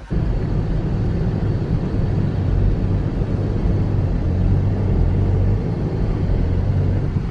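Car driving along, its engine holding a steady low drone under continuous road rumble.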